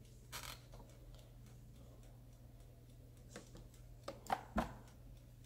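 Clicks from handling a Momento air fryer's plastic control knobs and basket handle: a short run of clicks just after the start, then a few sharper clicks about four seconds in, the last two the loudest.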